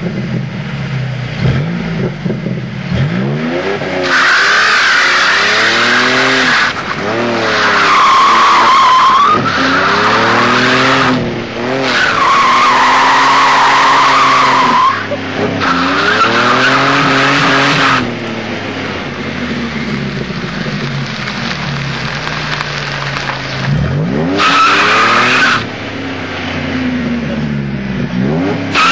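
Stock six-cylinder Ford Mustang revving hard as it spins donuts. Its rear tires break traction and squeal about five times, each squeal lasting one to three seconds. Between squeals the engine revs rise and fall.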